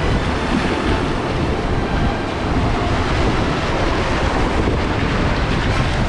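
Whitewater rapids churning close around an inflatable raft: a loud, steady rush of water with a deep rumble underneath.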